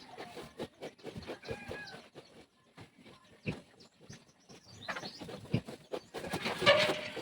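Farm animal sounds: scattered short grunts and knocks, with a louder animal call about six and a half seconds in.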